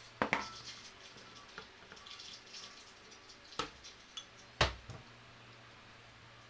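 Diced raw potato being scraped with a knife off a plastic cutting board into a bowl: a sharp clack, then light scraping and cubes tumbling in. After that come a couple of knocks as the board and knife are put down on the table, the loudest about four and a half seconds in.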